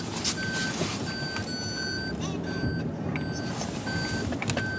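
Vehicle reversing warning beeps: short high beeps at one steady pitch, repeating about every 0.7 seconds over a low vehicle rumble.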